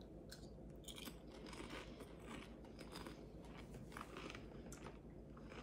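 Faint crunching of hand-cooked potato crisps being chewed, a scatter of small irregular crunches.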